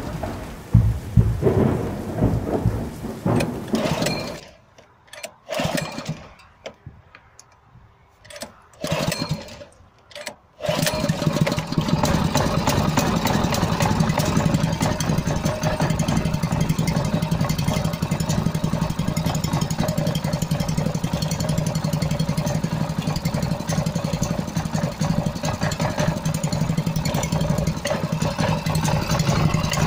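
INGCO 6.5 hp single-cylinder four-stroke stationary engine, belted to a water pump, running roughly at first, then cutting out about four seconds in. It coughs a few times and picks up again about ten seconds in, then runs steadily. This is the misfiring and stalling the owner is troubleshooting.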